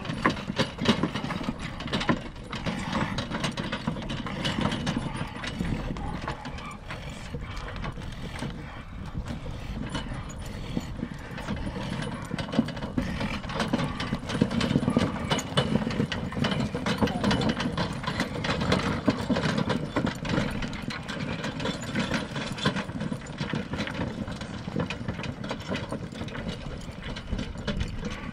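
Draft horse pulling a load: a continuous clatter and rattle of the load and harness, with hoof steps.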